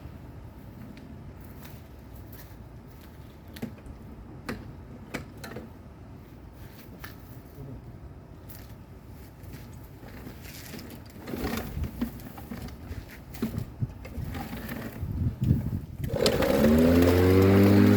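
Scattered clicks and knocks as the lawn mower's controls are worked. About sixteen seconds in, the mower's engine catches: its pitch rises, then it settles into a steady run.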